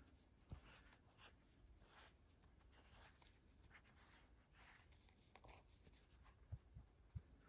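Near silence, with faint rustling of hands handling a small piece of frayed fabric and a few soft taps near the end.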